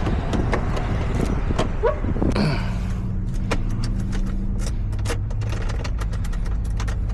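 Sharp clicks and rattles of a freshly cut key being worked in the truck's lock, against a constant background rumble. About two and a half seconds in, a steady low hum starts and holds.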